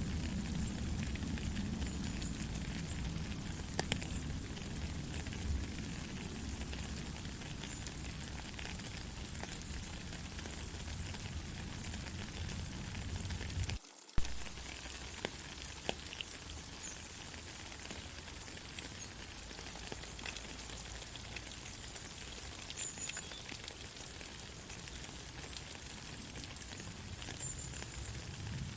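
Steady rain falling, an even hiss with scattered drips and patter. About halfway through the sound drops out for a moment with a sharp click, and afterwards the low rumble underneath is gone.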